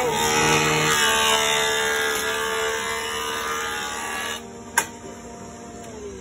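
Benchtop jointer running, its cutterhead planing a rough board of firewood: a loud, steady whine with hiss for about four seconds. The cutting then stops and the machine runs on more quietly. A single sharp click comes about five seconds in, and the motor's pitch begins to fall near the end as it winds down.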